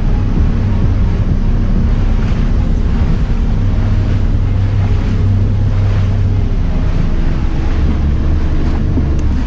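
Outboard motor running steadily as the boat moves across the lake, a low hum under heavy wind buffeting on the microphone and the rush of water from the wake.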